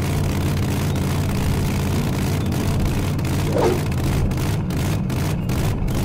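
Cartoon motorcycle engine sound effect, running steadily as the bike speeds along.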